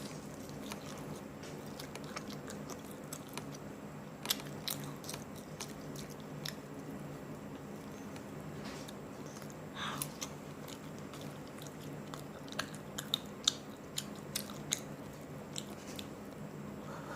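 Close-up chewing and biting into hot and spicy chicken, with sharp crackling crunches in clusters about four seconds in and again near the end, over a steady low hum.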